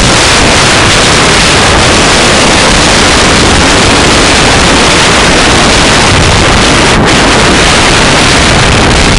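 Wind rushing over the microphone of a camera on a mountain bike descending a snow slope at speed, a loud, steady rush of noise that drowns out everything else.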